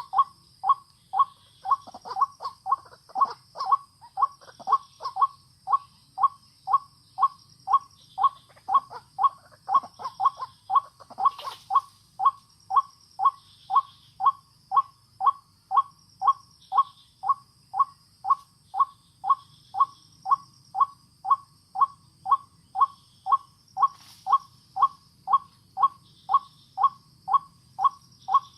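White-breasted waterhen call repeated over and over at an even pace, about two short calls a second, each a rough two-part note. A steady high insect-like drone runs underneath.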